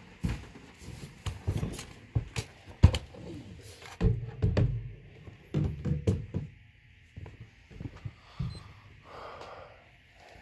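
Irregular knocks, clunks and clicks of vacuum cleaner parts being handled and fitted together, with the vacuum motor not running. A short rustle comes about nine seconds in.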